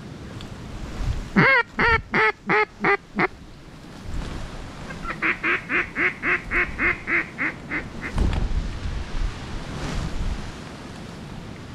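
Duck call quacking to incoming ducks: a loud series of about six quacks falling in pitch, then about ten quicker, softer quacks. Wind gusts rumble on the microphone near the end.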